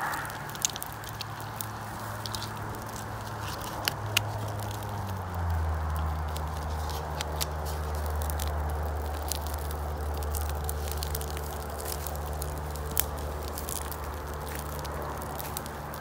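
Newly lit kindling fire, paper and thin dry twigs burning with scattered sharp crackles and pops. Under it runs a low steady hum that drops in pitch about five seconds in.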